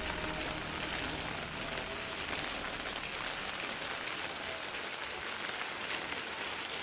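Steady rain falling, many single drops striking a surface as small sharp ticks.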